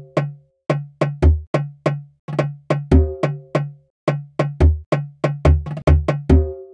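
Percussion loop of sampled drum hits playing back in GarageBand, about three hits a second, with a pitched drum tone on most hits and deep low booms on some.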